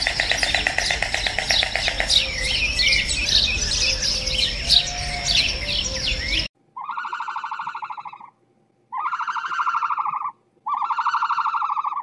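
A dense chorus of many small birds chirping over a steady high whine, which cuts off abruptly a little past halfway. Then come three long, buzzy, rapidly pulsing calls of about a second and a half each, separated by short silences.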